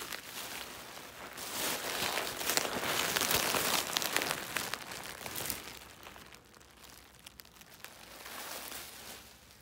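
Plastic bubble wrap being crumpled and handled, a dense run of small crackles that dies down after about six seconds to quieter, scattered rustles.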